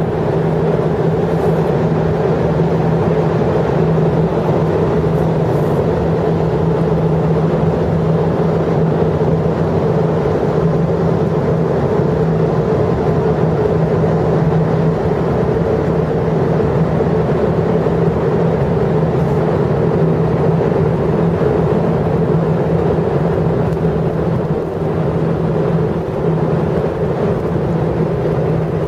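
Steady, loud mechanical drone with a constant low hum that holds the same pitch and level throughout.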